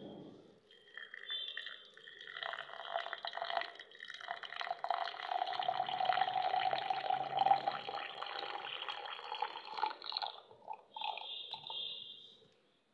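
Hot water poured from a thermos flask into a glass mug, splashing steadily and rising slightly in pitch as the glass fills. The pour stops about ten seconds in, followed by a few short last trickles.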